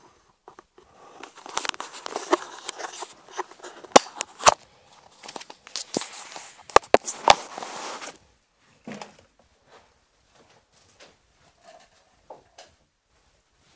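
Handling noise on the recording device's microphone: rustling and scraping with several sharp knocks and clicks, as the device is picked up and covered. It dies down to a few faint ticks after about eight seconds.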